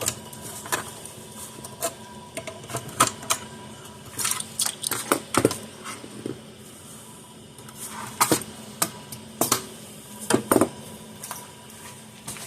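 Irregular clicks, knocks and light clatter of small hard parts and tools being handled, as the circuit board and power cord are taken out of an electric fence charger's case. The clicks come in clusters, busiest around the middle and about two thirds of the way in.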